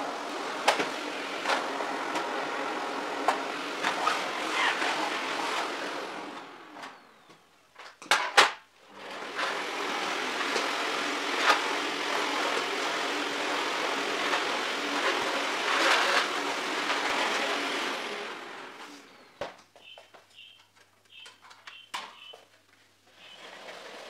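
Canister vacuum cleaner running as its floor head is pushed over a rug and floor. It cuts out after about six seconds, a couple of sharp clicks follow, it runs again from about nine seconds, then stops about three quarters of the way through, leaving light knocks and handling sounds.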